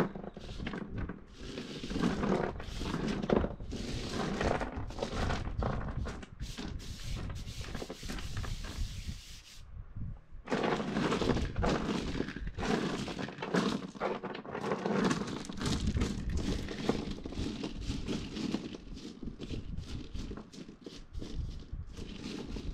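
Small stones clattering and scraping as hands sweep them across a board and spread them out, a close run of clicks and knocks with a brief break about halfway through.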